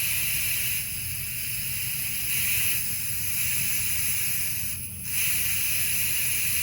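Air hissing steadily out of a pickup tire's valve stem as the pressure is bled down to trigger its TPMS sensor, with a brief break about five seconds in.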